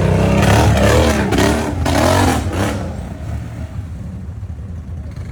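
ATV engine revving hard in repeated rising and falling surges, then dropping back to a lower, rough running just under three seconds in.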